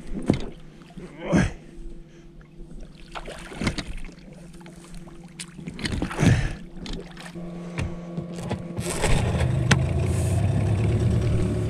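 A few sharp knocks and splashes around a small boat, then a boat motor running with a steady low drone from about nine seconds in.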